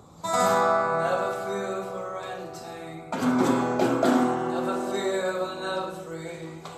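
Guitar chords strummed and left ringing, the first just after the start and a second, louder one about three seconds in.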